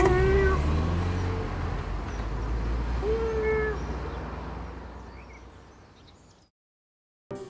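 A cat meows twice, once at the start and again about three seconds in, over the low rumble of a car driving away that fades out near the end.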